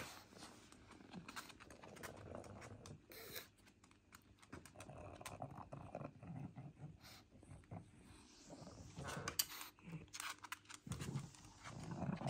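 Pug sniffing and snuffling as it noses through clothes in a laundry basket, with light clicks and cloth rustles.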